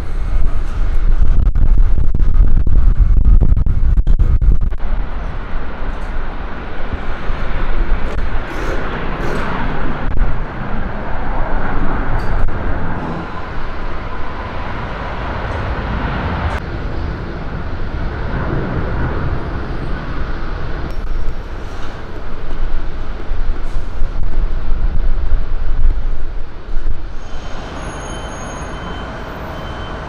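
Road traffic noise: a steady rumble of passing vehicles, heaviest and deepest in the first few seconds, easing off near the end.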